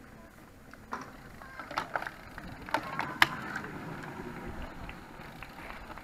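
Time-trial racing bicycles passing close by: a low rushing tyre noise that swells and fades, with several sharp clicks in the first half.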